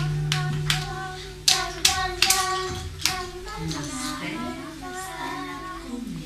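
Children singing along to music, with a series of sharp taps or claps, most of them in the first three seconds.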